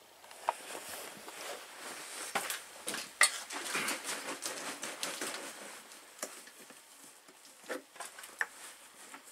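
Rustling, clinking and light knocking of tools and parts being handled on a cluttered workbench, with a handful of sharper clicks, the loudest about three seconds in.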